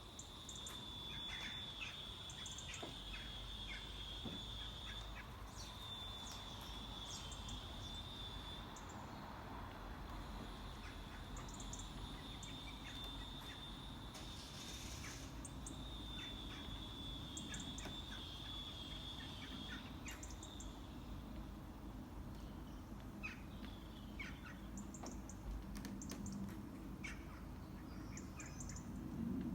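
Small birds chirping and twittering in quick clusters of short, high calls. A long, slightly wavering high whistle holds for a few seconds at a time, returns about four times, and stops about two-thirds of the way through, while the chirping continues over a low background rumble.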